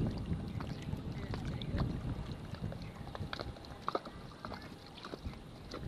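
Low, uneven rumble of wind on the microphone over water lapping against a boat's hull, with scattered faint ticks.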